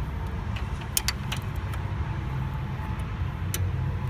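Kubota BX23S tractor's three-cylinder diesel idling steadily, with a few short sharp metallic clicks about a second in and again near the end as hydraulic hose couplers are handled and plugged together.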